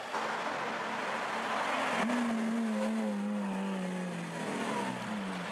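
Lamborghini Aventador's V12 engine pulling away, with a rush of exhaust noise at first, then about two seconds in a clear engine note that slowly drops in pitch as the car drives off.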